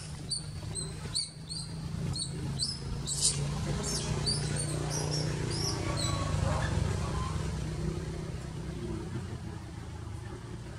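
Baby long-tailed macaque giving short, high-pitched squeaks, two or three a second, which stop about four seconds in. A steady low engine hum runs underneath.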